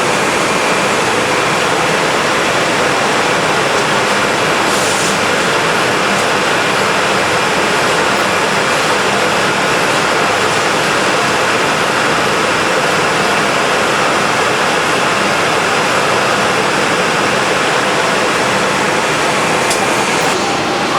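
HOMAG CNC woodworking machining centre running steadily while thread milling, a constant rushing noise of spindle, cutting and extraction with a faint steady whine over it.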